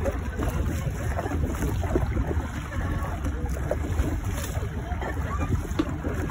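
Steady wind rumble on the microphone over water lapping, with irregular splashes of kayak paddles dipping into the water.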